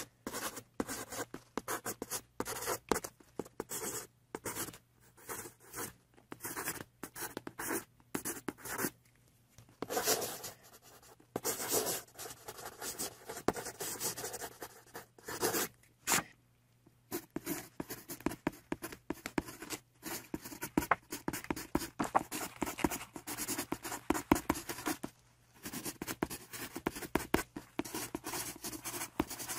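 Black felt-tip permanent marker scratching across paper in quick strokes as lines are drawn, with a few short pauses between strokes.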